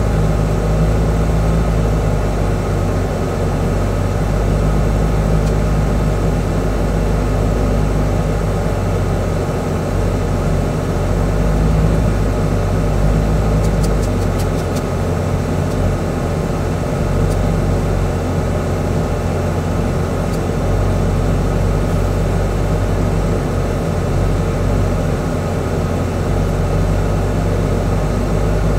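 Truck's diesel engine running steadily at low speed, heard from inside the cab, with a deep, even drone.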